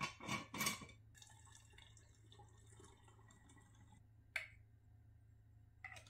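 A screw lid twisted off a glass jar with a few clicks, then a faint pour of dark wine through a plastic funnel into a glass wine bottle. A single sharp clink comes about four seconds in, and a few light knocks near the end.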